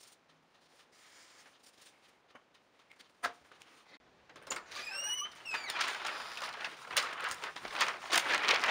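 A door squeaking open, with one short upward squeak about five seconds in, followed by footsteps on a concrete porch that get louder near the end.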